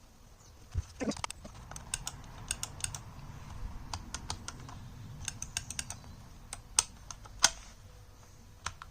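Irregular light clicks and taps from small plastic parts being handled.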